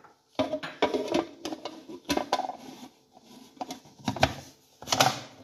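Clear plastic lid of a food chopper bowl being handled and fitted on over chopped onion, garlic and ginger: a run of irregular plastic clicks and knocks.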